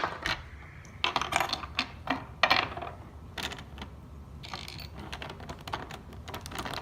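Hard plastic Rubik's Cube pieces clicking and clattering as they are handled, in irregular sharp clicks.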